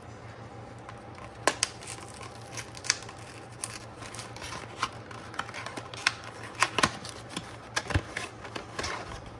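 Samsung 970 Evo Plus SSD retail packaging being opened by hand: scattered sharp clicks, taps and rustles, over a steady low hum from the room's air conditioner and servers.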